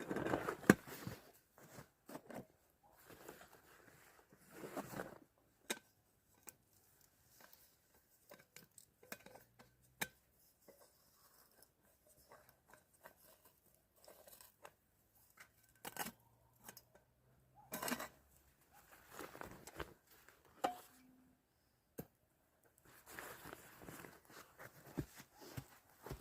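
Irregular crunching, rustling and sharp snapping clicks of hands-on work, with a louder cluster near the start and a few single sharp cracks spread through.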